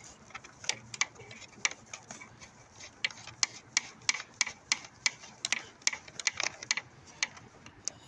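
Irregular light clicks and rattles of the moped's speedometer cable nut being unscrewed by hand from the speedometer, with fingers and cable rubbing against the surrounding wiring.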